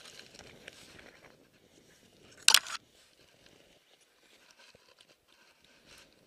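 Snow and twigs crunching and rustling as the hunter moves through brush, with one loud, sharp crunch about two and a half seconds in.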